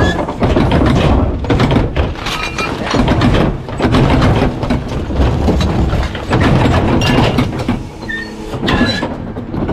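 Rear-loader garbage truck's hydraulic packer crushing a couch and bagged trash in the hopper: dense cracking and crunching over the truck's engine, with a steady hydraulic whine that comes and goes.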